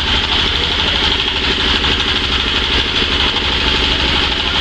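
Rotating-drum grain washer running steadily, its small drive engine running with a constant low drone and a steady hiss as the beans tumble through the drum.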